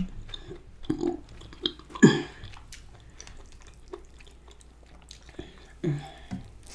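A person chewing food close to the microphone, with small wet mouth clicks and a couple of brief vocal sounds.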